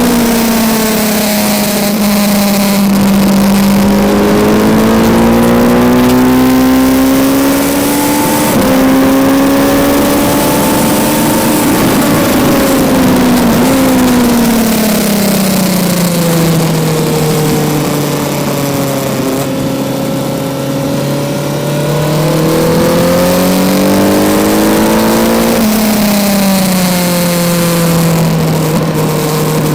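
Kawasaki Z900's inline-four engine pulling hard on track, its revs climbing, stepping through gear changes and falling away under engine braking before climbing again. Wind rushes past the onboard microphone.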